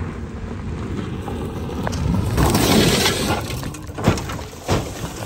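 A car's tyres spinning and sliding over loose gravel, a crunching rush of stones that builds about two seconds in, with a few sharp knocks of stones near the end.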